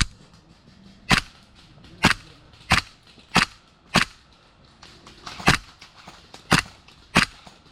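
An airsoft rifle firing single shots, each a sharp crack: about eight shots, mostly well under a second apart, with a pause of about a second and a half near the middle.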